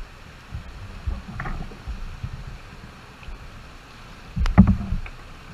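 Whitewater river running, with water slapping against the plastic kayak's hull in irregular low thumps. About four and a half seconds in comes a louder splash with a few sharp knocks.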